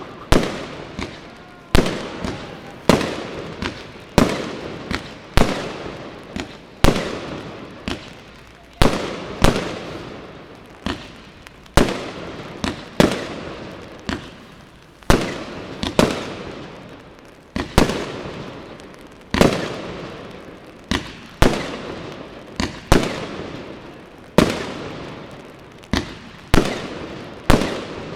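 Fireworks display: a steady run of loud bangs, about one every second or so, each fading out over about a second before the next.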